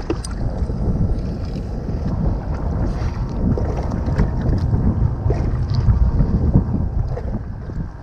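Wind rumbling on the microphone over choppy sea water lapping around a small boat, with a few faint knocks.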